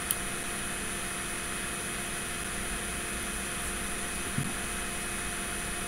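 Steady room tone: an even hiss with a faint electrical hum, and one small click just after the start.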